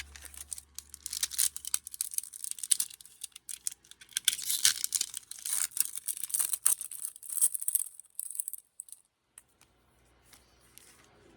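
Foil booster pack wrapper crinkling and being torn open, a dense crackle with many sharp ticks that goes on for about nine seconds, then stops.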